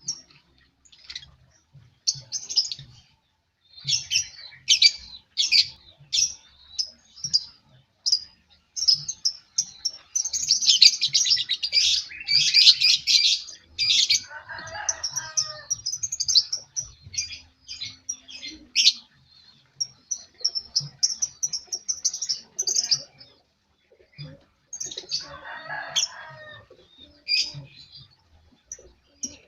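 Birds chirping: many short, high, sharp chirps and quick runs of chirps, thickest about ten to thirteen seconds in. A lower, rougher call breaks in around fifteen seconds and again near twenty-six seconds.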